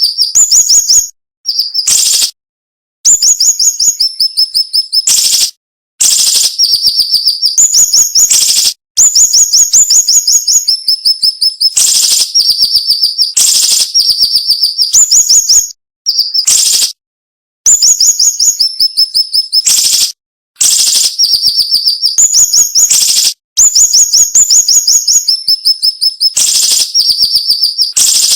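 Siri-siri bird singing loudly: rapid, sharp, dense trills of high notes that step down slightly in pitch, in phrases of one to three seconds with brief pauses between, mixed with occasional harsh, rasping notes.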